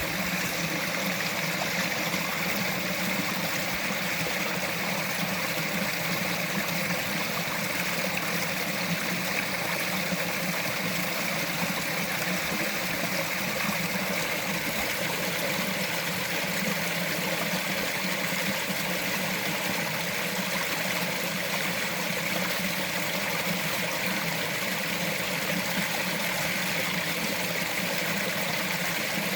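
Small mountain stream flowing and trickling over rocks, a steady, even rush of water.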